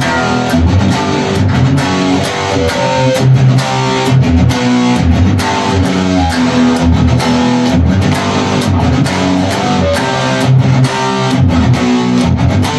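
Electric guitar playing a rock song: a driving low riff with higher melody notes over it, in a steady rhythm.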